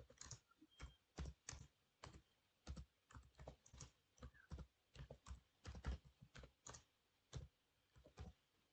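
Faint typing on a computer keyboard: a run of quick, irregular keystrokes.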